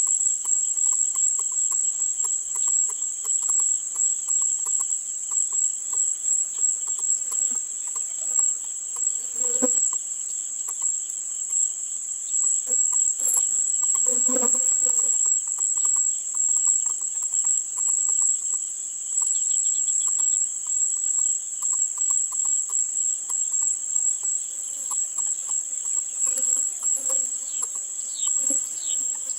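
Insects droning steadily at a high pitch throughout, with a few brief low calls here and there, about ten seconds in, around fourteen seconds and near the end.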